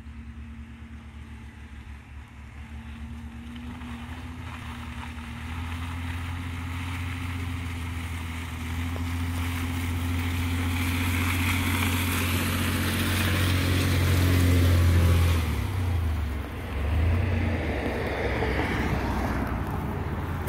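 Chevrolet Colorado ZR2 pickup's engine pulling steadily under load up a dirt hill, growing louder as it approaches. The engine sound drops briefly about sixteen seconds in, then picks up again as the truck crests the climb.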